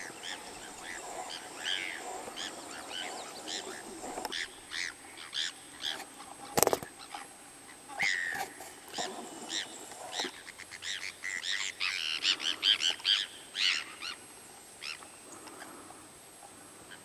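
Many short, high animal calls from birds or frogs, coming thick and irregular, busiest about eleven to fourteen seconds in. A single sharp click comes about six and a half seconds in.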